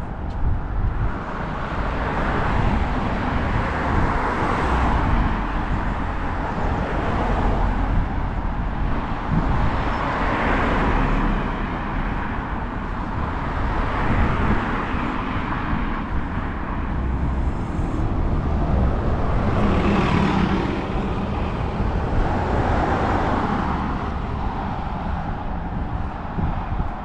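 Several cars passing one after another on a residential street, each a rushing noise that swells and fades, over a steady low rumble.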